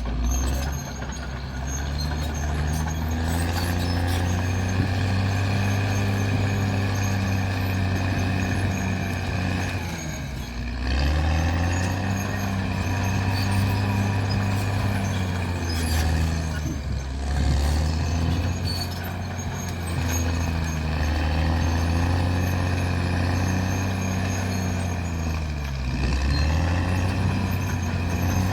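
Caterpillar D6R bulldozer's diesel engine running steadily. Its note sags and then picks back up about four times.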